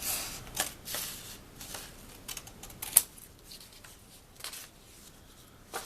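600-grit sandpaper backed by a school eraser being rubbed across a mandolin's metal frets, short irregular scratchy strokes, with a sharp click about three seconds in.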